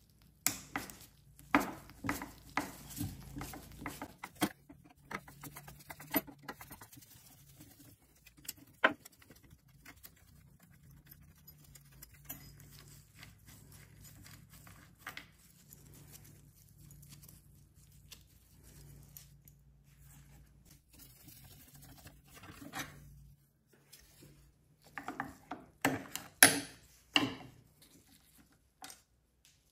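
Small clicks and taps of a screwdriver and metal fasteners as the carburetor is unscrewed from a Poulan 1800 chainsaw. A cluster of sharper clicks and knocks comes near the end as the carburetor is worked loose and lifted off its mount.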